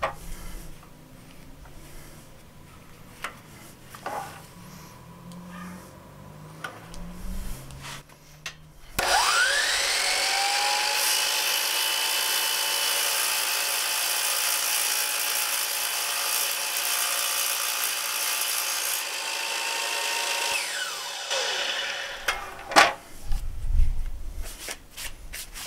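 DeWalt sliding miter saw with a Diablo blade starting up with a rising whine about nine seconds in. It runs steadily for about eleven seconds while the blade is brought slowly down through a half-inch square aluminum bar, then winds down. A couple of sharp knocks follow near the end.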